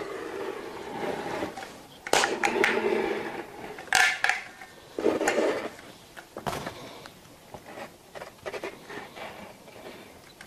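Hand-held caulking gun being worked to squeeze construction adhesive out of its tube: a string of sharp metallic clicks and rattles from the trigger and plunger rod, the strongest about 2 and 4 seconds in, between stretches of rubbing and creaking.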